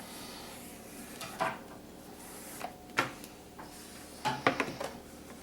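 A few separate light knocks and clicks, about 1.5 s, 3 s and 4.5 s in, over a faint hiss: parts and cleaning things being handled while a turntable is cleaned.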